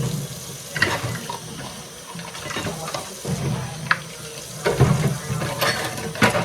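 Tap water running into a kitchen sink while dishes are washed by hand, with several sharp clinks and knocks of dishes against each other or the sink.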